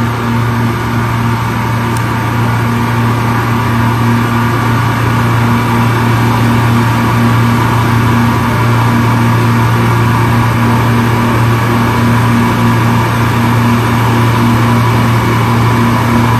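Supermarket refrigeration compressor rack running in its machine room: a loud, steady mechanical hum with a strong low drone.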